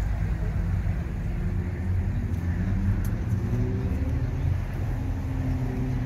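A car engine running nearby, a steady low rumble whose pitch drifts slightly up and down.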